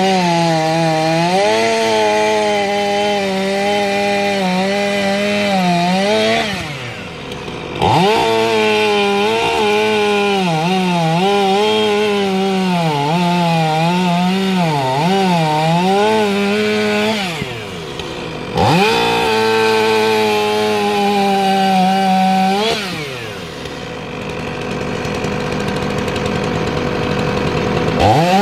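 Two-stroke chainsaw cutting wood at high revs, its pitch sagging and wavering as the chain bites. It drops off the throttle three times, the longest near the end, and each time opens up sharply again.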